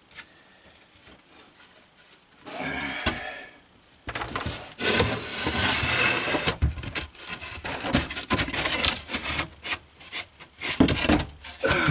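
A sheet of OSB scraping, rubbing and knocking against a wooden shelf frame as it is tilted and slid into place by hand. After a short scuff, the scraping starts in earnest about four seconds in and runs on irregularly with many small knocks.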